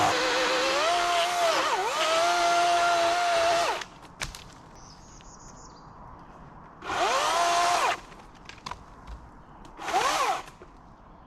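Chainsaw cutting through a fallen tree: the motor whines steadily, its pitch dips as the chain bites, and it stops about four seconds in. Two short revs of the saw follow, one near the middle and one near the end.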